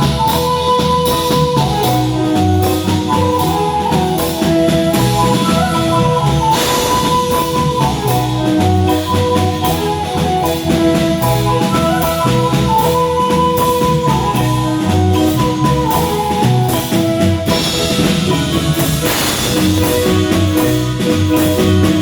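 Marimba band playing a lively tune: mallet marimba with long rolled notes over low bass notes, backed by a drum kit with occasional cymbal crashes.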